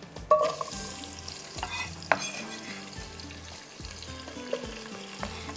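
Food frying and sizzling in hot oil, with a sharp metallic knock and ringing about a quarter second in and a few more clinks of a utensil against the pot a second or so later.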